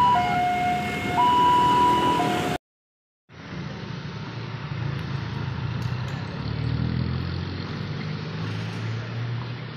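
Railway level-crossing warning alarm sounding two alternating electronic tones, switching about once a second. It cuts off abruptly after about two and a half seconds. After a short gap comes the steady low rumble of road vehicle engines, swelling for a moment midway.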